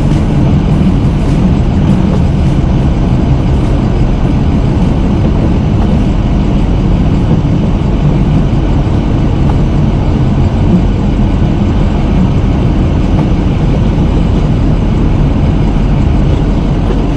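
Snow-plow pickup truck's engine running steadily, a loud unbroken low drone.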